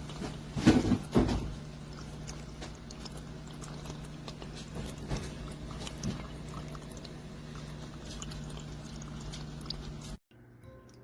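Small tabletop fountain running: a steady low pump hum under trickling water with scattered small ticks and drips. A brief louder sound, about a second in, rises over it.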